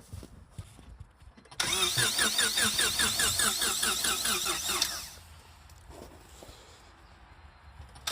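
Starter cranking the Acura's swapped-in Honda D15B four-cylinder for about three seconds, an even chugging of about seven beats a second with a whine over it, then stopping without the engine catching. The car is overheated and won't start.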